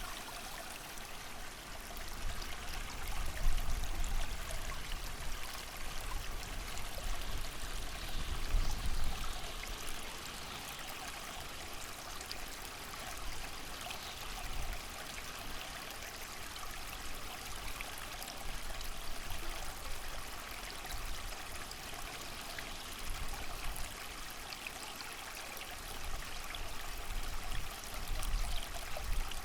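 Creek water rushing steadily with a hiss of rain, and gusts of wind swelling low and loud a few times, about 3 and 9 seconds in and near the end.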